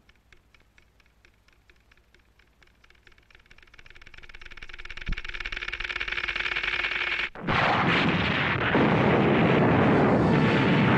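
Cartoon time bomb ticking rapidly and evenly, growing louder, then a loud explosion about seven and a half seconds in that keeps going without a break.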